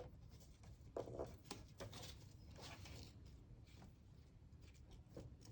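Near silence with a few faint taps and rustles of paper card being handled.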